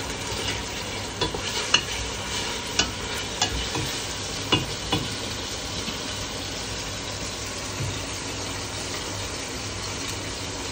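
Sliced red onions sizzling steadily in olive oil in a stainless steel pot. During the first five seconds a wooden spatula stirs them, giving several sharp clicks and knocks against the pot.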